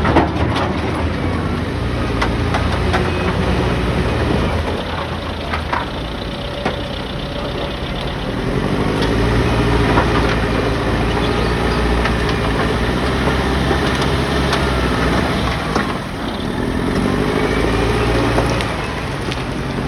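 Heavy diesel machinery engine running, its level rising and falling as it works, with scattered short knocks and clanks.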